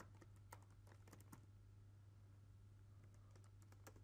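Faint computer keyboard keystrokes, a few scattered irregular clicks, over a low steady hum.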